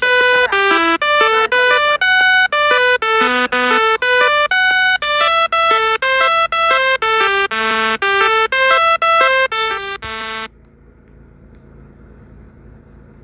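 A simple electronic melody of quick, short beeping notes with a bright, buzzy tone, like a ringtone or toy keyboard tune. It cuts off abruptly about ten seconds in, leaving only faint background noise.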